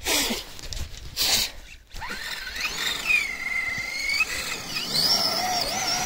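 Kyosho Blizzard EV radio-controlled electric snowcat driving in snow. Two short rushes of churning snow come near the start. Then the electric motor's whine rises and falls with the throttle as the tracks spin and throw snow.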